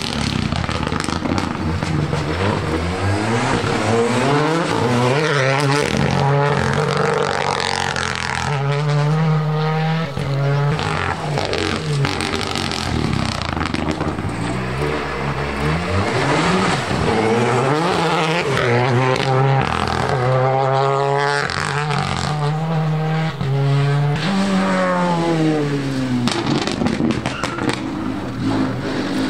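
Rally cars at full effort on a closed special stage: engines revving hard and climbing through the gears, the pitch dropping at each shift and coming off for braking, with some tyre squeal.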